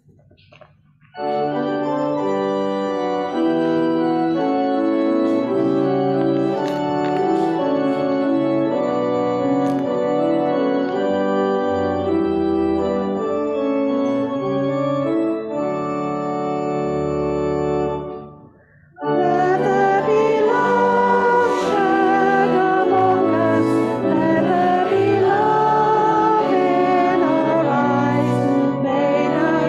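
Organ playing a hymn introduction in held block chords. After a brief break about nineteen seconds in, the congregation starts singing the hymn with the organ.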